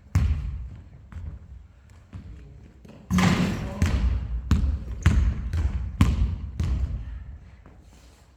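Basketball bouncing on a gym floor: a few scattered bounces, then from about three seconds in a steady dribble of roughly two bounces a second that fades near the end.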